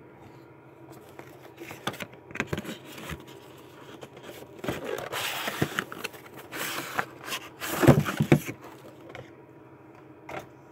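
Cardboard craft-kit box being opened by hand: the lid scraping and sliding off, with knocks and rustling of the packaging. The noise is loudest about eight seconds in.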